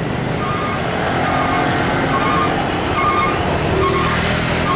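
Hino 500 diesel tractor unit running as it drives past hauling a container trailer, over steady road traffic noise.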